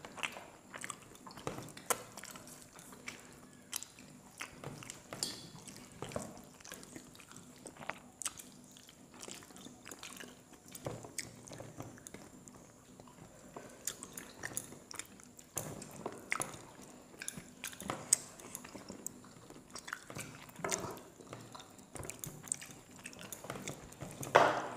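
Close-miked eating by hand: chewing and mouth sounds as rice and chicken curry are eaten, with irregular small clicks and soft wet sounds of fingers mixing rice on the plates. One louder burst comes near the end.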